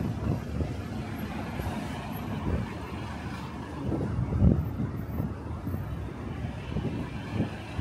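Busy city road traffic: a steady low rumble of buses and cars passing, swelling louder about four and a half seconds in.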